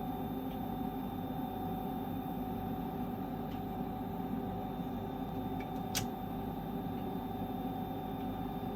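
MPP Solar PIP8048MAX hybrid solar inverter making an abnormal steady electrical hum with a mix of fixed tones, including a thin high whine, and faint ticking. A single sharp click sounds about six seconds in.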